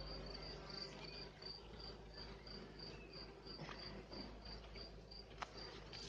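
A cricket chirping in a steady high-pitched pulse, about three to four chirps a second, over a faint hum of honeybees from the open hive. A couple of light clicks come as the wooden frames are handled.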